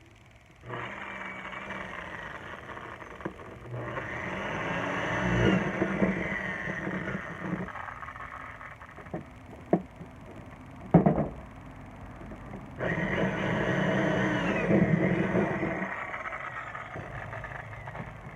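Handheld power tool motor running under load in two long runs, its pitch and loudness shifting as it works, with a few sharp knocks between the runs.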